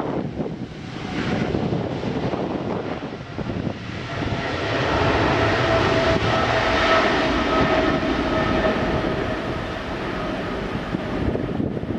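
Jet airliner running with a loud rumbling noise; a steady whine of several tones comes in about four seconds in as the sound grows louder.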